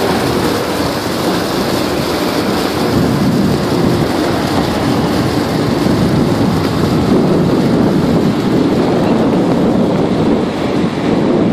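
A truck running steadily as it drives slowly, its engine noise mixed with a steady rushing noise of wind on the microphone.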